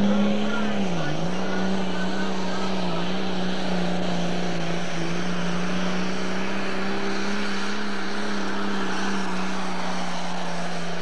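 John Deere pulling tractor's engine running flat out as it drags the weight sled down the track. Its pitch dips briefly about a second in, then holds steady.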